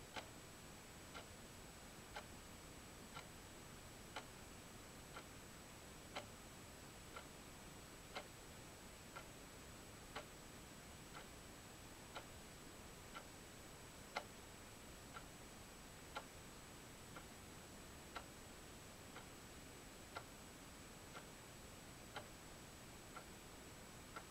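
A clock ticking steadily, about once a second, some ticks louder than others, over faint hiss and a thin high steady tone.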